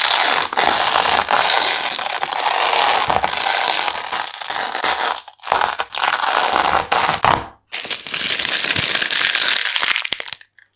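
Painted-over masking tape being peeled off a canvas, a loud, continuous crackling rip. It breaks off briefly twice, about five and seven and a half seconds in, and stops just before the end.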